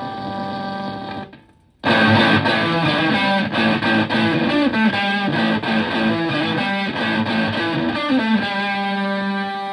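Stratocaster electric guitar played through a Zonk Machine fuzz pedal reproduction into a Fender Twin Reverb clone amp, heavily fuzzed. A held note cuts off about a second in; after a short gap comes a fast run of picked notes, ending on a long sustained note.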